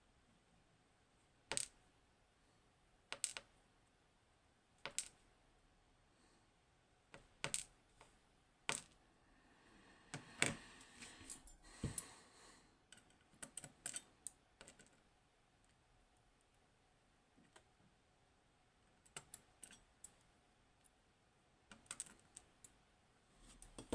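Small metal clicks and taps from handling the parts of a high-security pin-tumbler lock: single sharp ticks every second or two, with a quicker run of clicks about halfway through.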